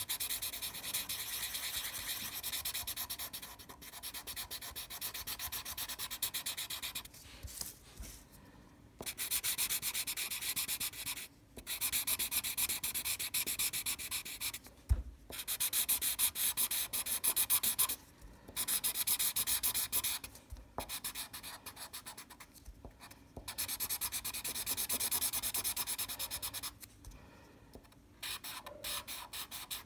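Black felt-tip marker scribbling back and forth on paper to fill in solid black areas of a drawing. The strokes come in runs of a few seconds, with short pauses between them, and there is a single knock about fifteen seconds in.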